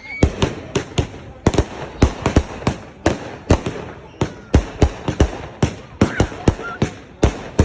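Fireworks going off in a rapid, irregular series of sharp bangs, about three a second.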